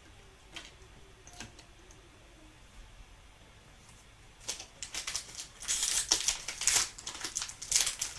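A foil trading-card pack wrapper being torn open and crinkled, in quick bursts starting about halfway through, after a couple of faint clicks.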